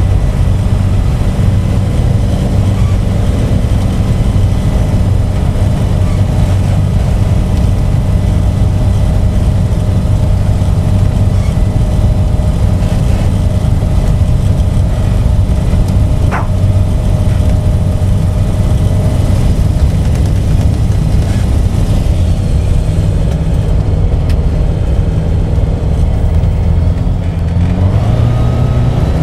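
Savage ultralight taildragger's propeller engine running steadily at low taxi power, rising in pitch near the end as the power comes up.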